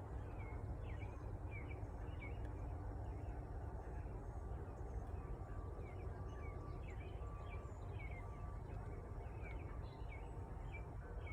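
A small bird chirping over and over, short high chirps about twice a second, over a steady low wind rumble.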